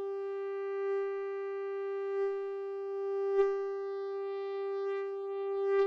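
Synthesized mosquito buzz: a steady, single-pitched whine with many overtones, swelling and easing in loudness several times as binaural panning moves it around the listener's head. A small click about three and a half seconds in.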